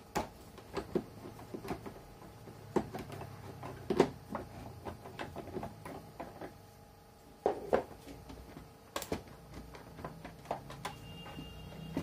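Scattered clicks and knocks of plastic parts being handled and pulled loose inside the opened casing of a Panasonic DH-3JL2 electric shower water heater, the sharpest knocks about four and nine seconds in.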